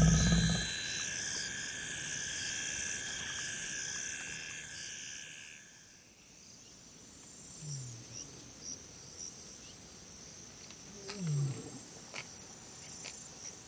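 A leopard's low growl fades out in the first half-second over a steady night chorus of insects, which stops about six seconds in. After that come two short, low, falling grunts, one a little under halfway through and one near the end.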